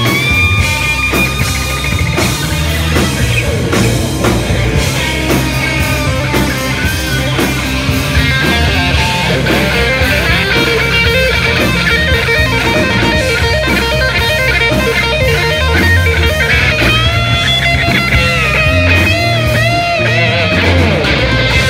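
Live rock band playing an instrumental passage: a lead electric guitar plays a solo full of bent, gliding notes over bass and drums.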